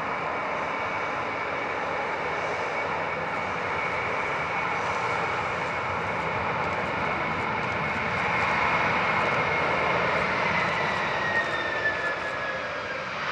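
Boeing 767-300F freighter's jet engines in reverse thrust on the landing roll on a wet runway: a steady rush of jet noise that grows louder about eight seconds in. Near the end a whine falls slowly in pitch as the engines spool down.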